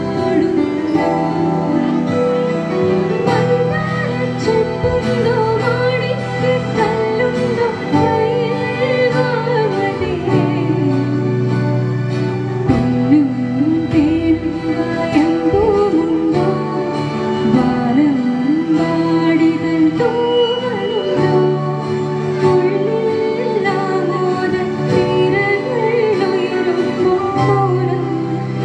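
A live song played through a PA system: a girl sings the lead into a microphone over sustained electronic keyboard chords and acoustic guitar.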